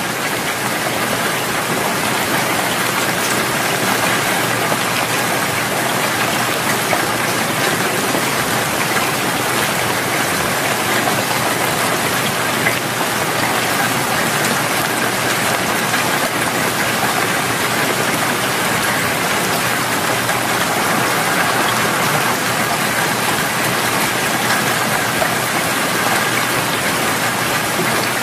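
Loud, steady rain sound used as the masking track of a subliminal audio, which covers quietly layered affirmations.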